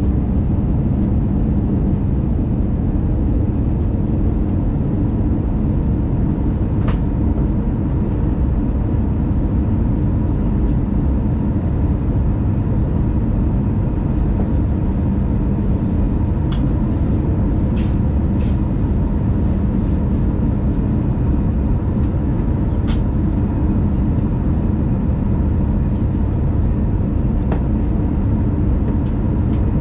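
Steady low rumble inside the cabin of an Airbus A319 in flight: engine and airflow noise heard from a window seat over the wing, with a few faint clicks now and then.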